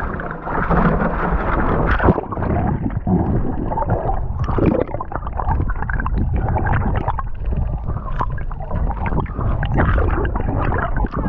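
Water gurgling and rushing in uneven surges, as heard with the microphone in the water while spearfishing.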